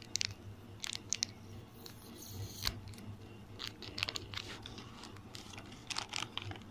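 Foil Maggi masala tastemaker sachet crinkling in the fingers as it is torn open, in scattered short crackles.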